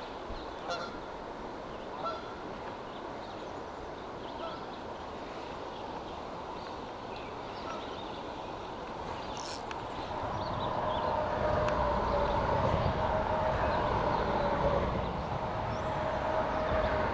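Steady wash of a shallow river flowing. About ten seconds in, a steady droning hum with a low rumble builds up and grows louder.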